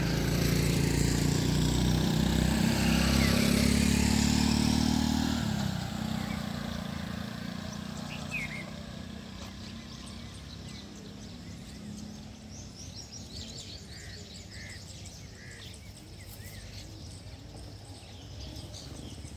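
An engine runs steadily, loudest at the start, and drops away about five and a half seconds in. After that there is quieter outdoor background with scattered short bird chirps.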